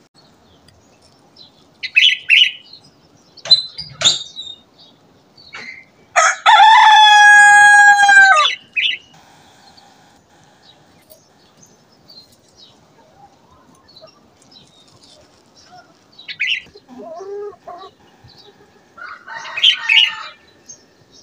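A rooster crows once, a long crow of about two and a half seconds that rises and then falls, about six seconds in. Short chicken calls and clucks come before it and again near the end.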